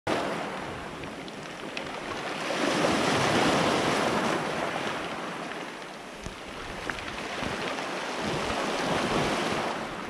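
Small sea waves washing up and back over a pebble beach. The surf swells twice, once about three seconds in and again near nine seconds, with a few faint clicks.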